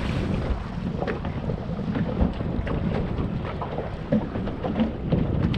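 Wind buffeting the microphone over the rumble of water against a boat's hull, with a few faint clicks and taps scattered through it.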